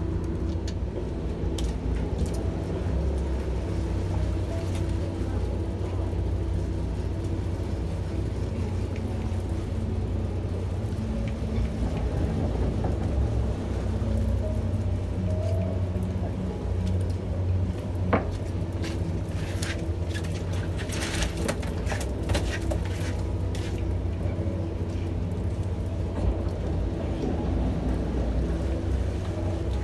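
Boat engine running steadily with a low rumble. A sharp tick about eighteen seconds in, then a cluster of short clicks and rustles over the next few seconds.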